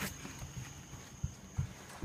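A sharp click, then several soft, uneven footsteps, with crickets chirping faintly in the background.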